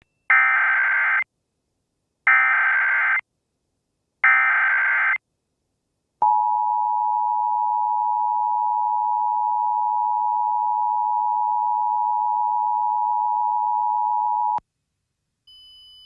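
Emergency Alert System tones: three roughly one-second bursts of the SAME digital header, a buzzy data screech, about two seconds apart, then the steady two-tone EAS attention signal held for about eight seconds and cut off suddenly. They mark the start of an emergency alert broadcast.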